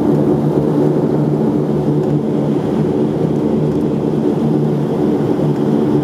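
Saab 2000 Rolls-Royce AE 2100 turboprop engine and six-bladed propeller running, a loud, steady, even drone heard from inside the cabin beside the engine.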